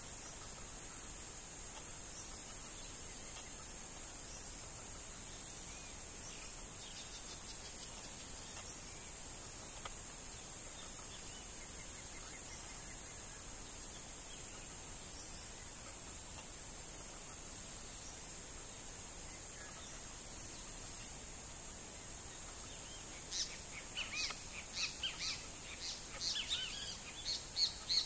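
Steady high-pitched insect drone, with a run of short bird chirps joining in over the last five seconds or so.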